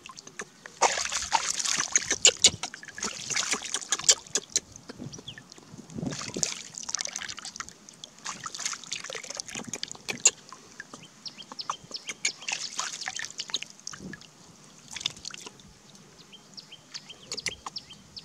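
Hands splashing and scooping lake water over a baby monkey to rinse it, giving irregular bursts of splashing and trickling with quieter gaps between.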